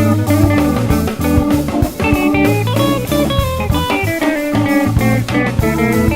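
Background music: blues-style electric guitar with bass and drum kit, playing a steady beat.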